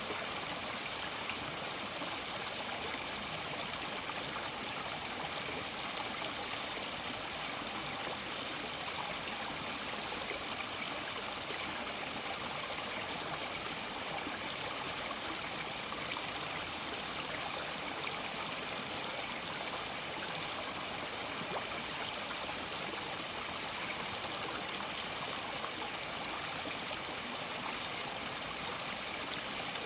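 Stream water running over stones, a steady, even rush with fine trickling and gurgling.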